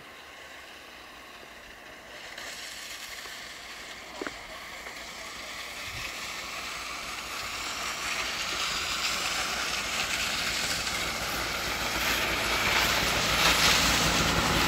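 Snowmobile engine running, growing steadily louder as the sled comes closer over the snow.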